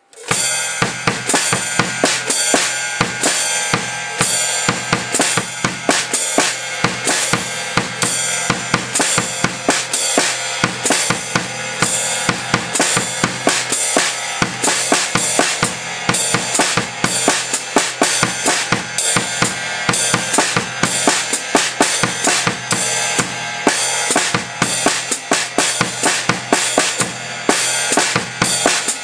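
Drum kit played through a reading exercise: a steady quarter-note pulse on the ride cymbal and foot-closed hi-hat under written snare and bass drum figures. The playing starts abruptly and keeps an even rhythm.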